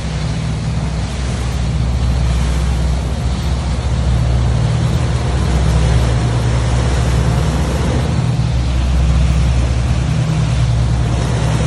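Speedboat running fast on open water: a steady low drone from its twin Mercury outboard motors under the rush of wind and churning water.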